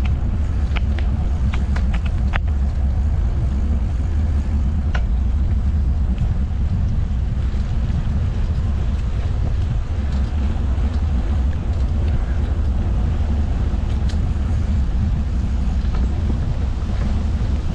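Steady low rumble of wind buffeting the camera microphone while riding a mountain bike along a trail, with a few sharp ticks in the first couple of seconds.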